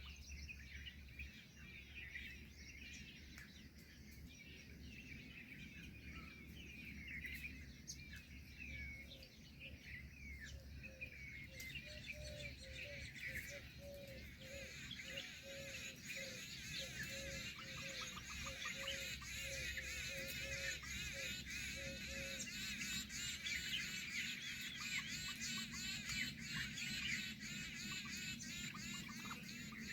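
A dawn-chorus-like mix of many small birds chirping and twittering, growing denser and busier in the second half. Under it, another bird repeats a short low note about twice a second for several seconds, then stops.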